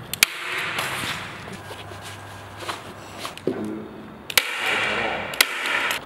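Canvas being pulled taut and stapled onto a wooden stretcher frame: rasping of the fabric drawn over the wood, and three sharp staple clicks, one near the start and two about a second apart near the end.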